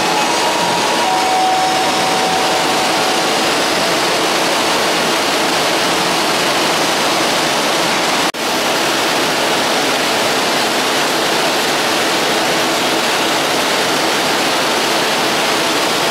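Nippon Sharyo MCW 302 diesel-hydraulic railcar standing at the platform with its engines running: a loud, steady rushing noise, broken off for an instant about eight seconds in.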